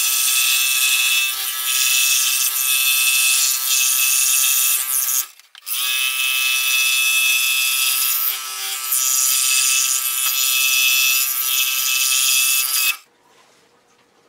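Electric scroll saw running and cutting through a wooden board, with a steady, even buzz. The sound drops out for a moment about five seconds in, resumes, and the saw stops about a second before the end.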